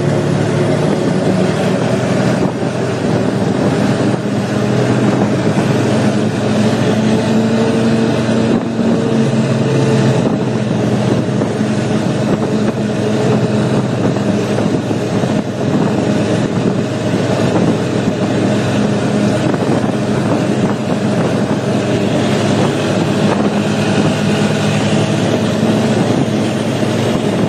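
ATV engine running steadily at a fairly constant pitch while riding, with a broad noisy hiss over it.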